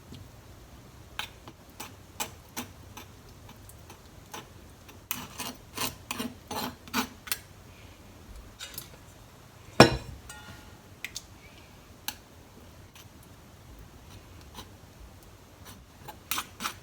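A kitchen utensil clicking and scraping against the soup pot while sake lees are stirred in and dissolved: irregular light clicks, a quick run of them about five seconds in and one sharper knock near the ten-second mark.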